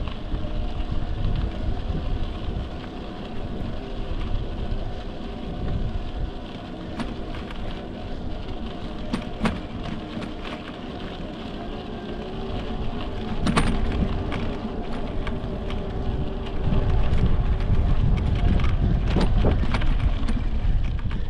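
Electric mountain bike riding over a dirt trail: wind buffeting the microphone, a faint steady motor hum, and the crackle of tyres on dirt with scattered clicks and knocks. The loudest sharp knock comes about halfway through. The wind rumble grows louder near the end.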